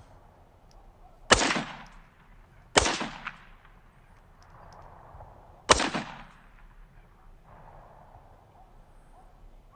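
Three single shots from an AR-style rifle, fired one at a time: the first about a second and a half in, the next a second and a half later, the third about three seconds after that. Each is a sharp crack with a short echoing tail.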